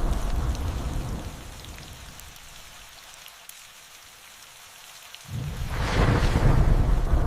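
Rain falling steadily with thunder. A rolling rumble fades away over the first second or two, leaving the hiss of the rain. Then a new thunderclap breaks in suddenly about five seconds in and rolls on loudly.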